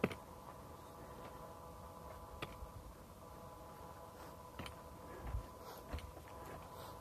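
Faint, sparse clicks and soft thumps from a handheld camera and a hiker's footsteps on a dirt trail, over a faint steady hum.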